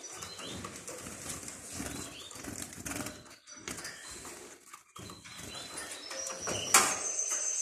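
Young sparrow chicks chirping in short, high calls. Near the end there is a sharp click, and a steady high tone sets in.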